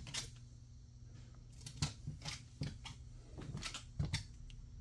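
Footsteps of white FILA sneakers on a laminate floor: a few soft, irregular taps and scuffs starting about two seconds in.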